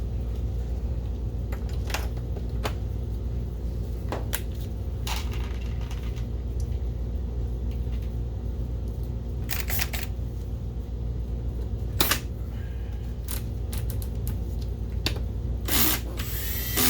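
Scattered clicks and knocks of parts being handled and fitted back onto a projector's housing, with a short noisy burst near the end, over a steady low hum.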